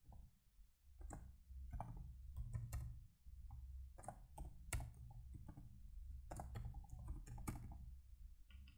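Computer keyboard typing: faint, irregular keystrokes over a low steady hum.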